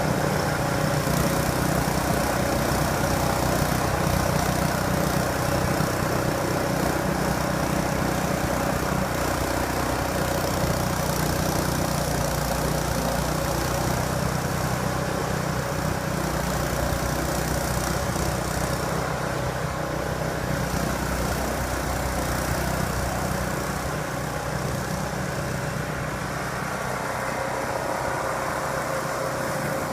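Ariens 926 two-stage snowblower's engine running steadily, a little quieter over the last third.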